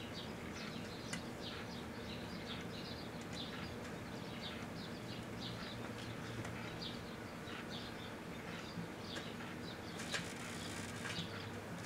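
Microwave oven running with a steady hum while a 5 1/4" floppy disk drive burns inside it, crackling and popping with many short, sharp snaps. A louder burst of crackling comes about ten seconds in.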